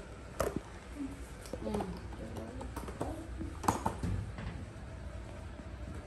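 A worn football pushed along a tiled floor, with two sharp knocks about three seconds apart, the second the louder, and low murmured voice sounds between them.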